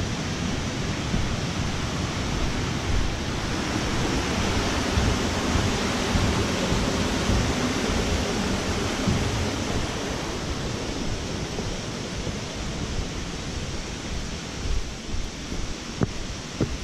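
Steady rush of a tall waterfall, about 60 metres high: a constant, even roar of falling water.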